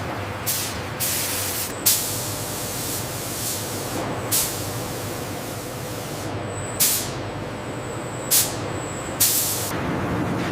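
Short blasts of hissing air, about seven at irregular spacing, over a steady industrial machinery rumble: cooling-air jets in a furnace cool-down line.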